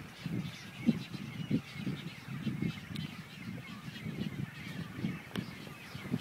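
A nesting colony of waterbirds, roseate spoonbills and anhingas, calling to one another: many short, low calls overlapping without pause.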